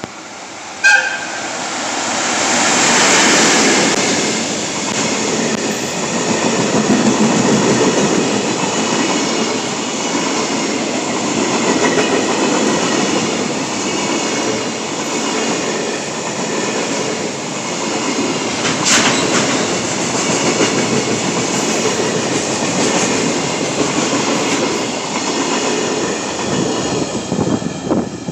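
JR Freight EF65 electric locomotive and its container wagons passing close by at speed, a steady loud rumble with clickety-clack of wheels over rail joints. There is a short horn toot about a second in, the locomotive's service horn.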